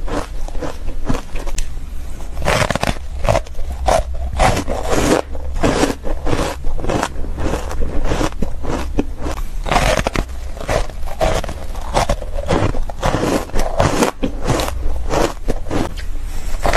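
Close-miked crunching and chewing of frozen shaved ice coated in matcha powder, a dense run of short crisp crunches with brief gaps between bites.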